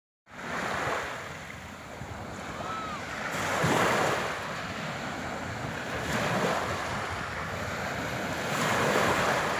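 Sea waves washing onto the shore, the surf swelling and easing about every two and a half seconds.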